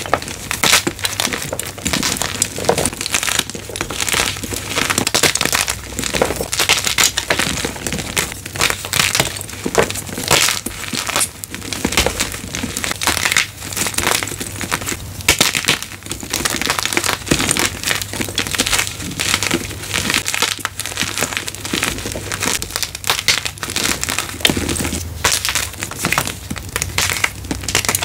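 Blocks of crunchy gym chalk being crushed one after another: a dense, unbroken run of crunches and crackles.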